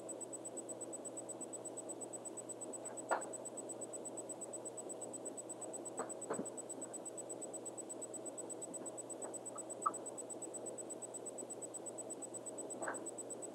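Hands working thread and a bobbin at a fly-tying vise, making a handful of soft clicks and taps over a steady background hiss with a thin high whine.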